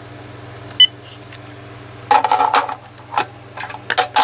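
A Uniden EXI2960 cordless phone handset gives one short high key beep about a second in. From about two seconds in come a run of sharp plastic clicks and knocks as the handset is handled and set into its charging cradle, over a low steady hum.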